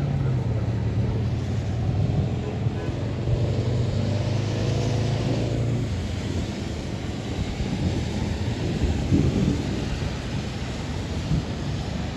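A motor vehicle's engine hum and tyre hiss swell and fade as it passes, during the first half. A low, unpitched rumble of thunder follows under the noise of the storm.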